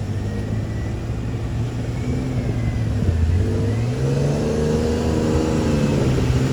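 A 4x4's engine revving under load, rising in pitch about four seconds in and holding there.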